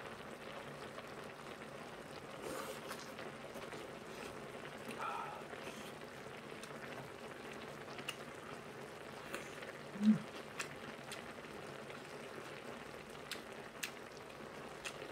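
Braised kimchi stew simmering in a hot pan: a low, steady bubbling hiss. Scattered light chopstick clicks and eating sounds run over it, with a brief low vocal hum about ten seconds in.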